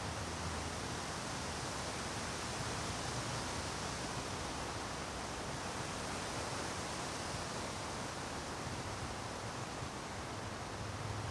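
Wind rushing steadily through conifer trees, a continuous soft rustling hiss of branches and needles.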